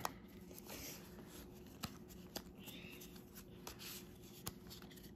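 Faint rustling and light clicks as a Pokémon trading-card booster pack is opened and its cards pulled out and handled.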